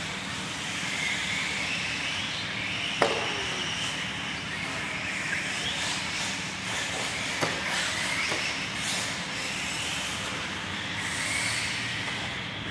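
Several RC cars on the track, their motors whining up and down in pitch as they accelerate and slow through the corners. A couple of sharp knocks come about three seconds in and again past halfway.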